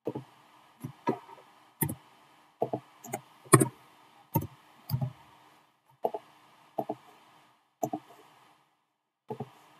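Computer mouse clicks and keyboard key presses: about a dozen short, sharp clicks at irregular intervals.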